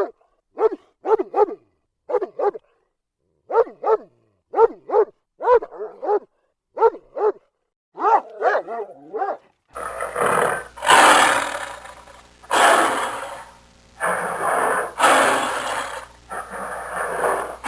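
A dog barking in short runs of two or three barks. After about nine and a half seconds a different recording cuts in: a harsh, noisy animal call in about six long, drawn-out bursts.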